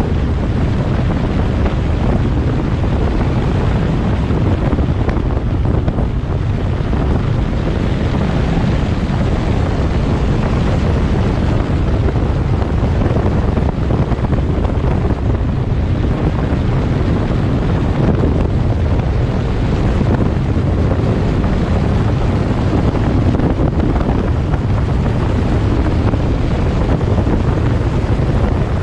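Wind buffeting the microphone of a moving car, over steady road rumble: a dense, unbroken low rumble with no separate events.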